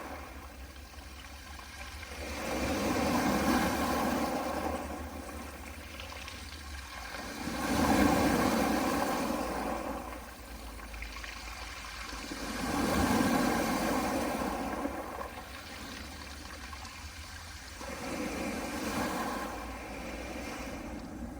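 Soft sea waves washing onto a pebble beach, surging and falling back about every five seconds, four surges in all.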